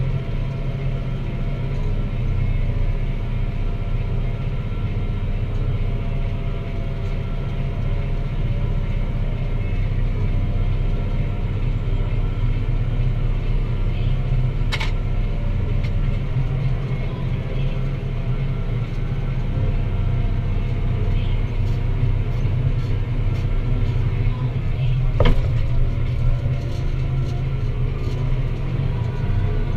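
Deutz-Fahr Agrotron 165 MK3 tractor's diesel engine running steadily under load while pulling a plough. Two sharp clicks cut through it, about halfway through and again near the end.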